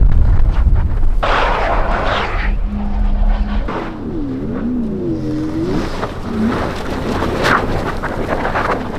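A car engine and exhaust rumbling loudly close by, which stops sharply about four seconds in. Wavering tones that slide up and down follow.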